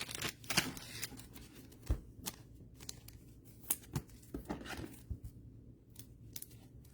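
Trading cards being handled: scattered light clicks and soft rustles as cards are flipped and slid through the hands.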